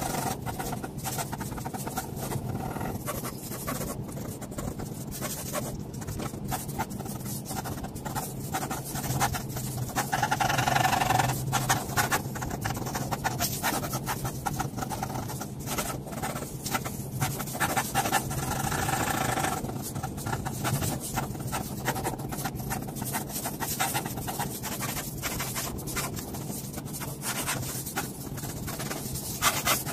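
Pen nib scratching across paper in quick, repeated line and hatching strokes, over a low steady hum.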